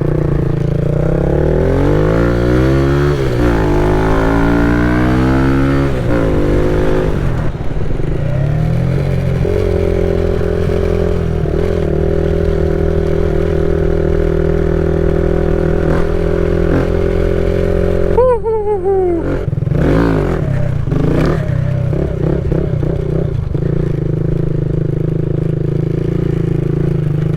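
Kawasaki Z125's single-cylinder engine through an aftermarket full exhaust, ridden on the road: it revs up in the first few seconds, then holds a steady cruise. About two-thirds of the way in the revs drop quickly, then settle back to a steady run.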